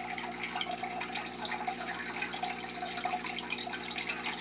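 Aquarium water trickling and bubbling steadily, the running sound of the tank's filter, over a steady low hum.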